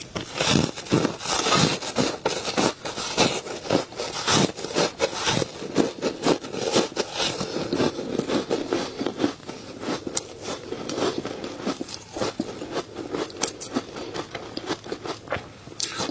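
Close-miked crunching and chewing of ice blocks coated in matcha powder: a dense, unbroken run of crackling crunches.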